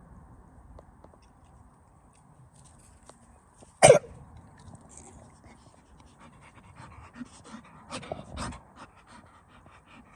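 American Bully dog panting in quick breathy bursts, heaviest near the end, with one short, sharp, loud sound about four seconds in.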